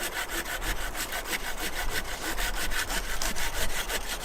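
Bahco Laplander folding saw cutting firewood in rapid, even rasping strokes, about six or seven a second.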